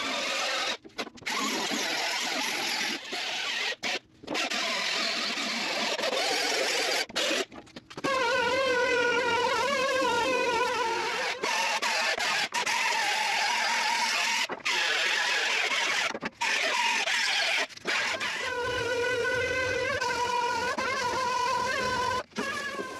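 Handheld grinder grinding steel, its motor whine drifting up and down in pitch as it bites, over a steady hiss of grinding. It stops abruptly several times, each time only for a moment.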